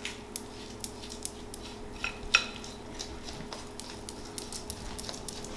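Rubber spatula scraping a creamy butter, sugar and egg mix out of a glass mixing bowl, with light scattered clicks and taps against the glass and one sharper tap about two and a half seconds in.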